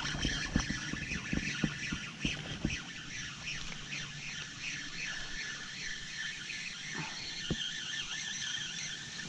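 Handling sounds as a small hooked fish is reeled to the boat: a run of knocks and clicks in the first few seconds, the loudest about half a second in. After that comes a rapid, evenly repeating high chirping that runs on to the end.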